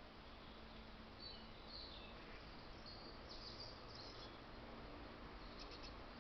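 Faint, short high-pitched bird chirps in scattered clusters over a steady low background hiss.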